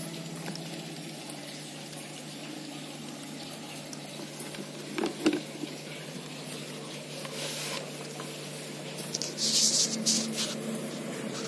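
Ultrasonic mist maker running in a cup of water, a steady sizzling, bubbling hiss over a low hum. A couple of clicks come about halfway, and a short, louder hiss comes near the end.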